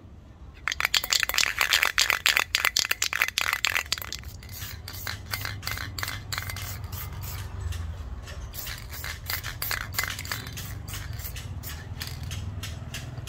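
Hand scraping strokes on the steel of an old army shovel: a fast, loud run of strokes for about three seconds, then slower, lighter strokes, a few a second.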